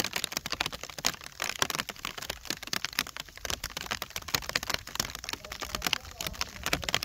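Rain pattering directly on the phone's microphone: a dense, irregular crackle of small clicks.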